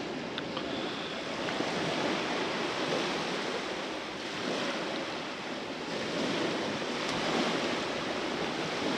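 Sea surf washing onto a beach, a steady rushing that swells and eases every few seconds.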